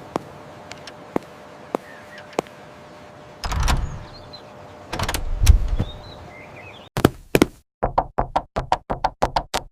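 A clock ticking steadily, about one tick every half second, for the first couple of seconds. Then two bursts of rushing noise, the second one louder. Near the end comes a rapid run of about a dozen knocks on a door.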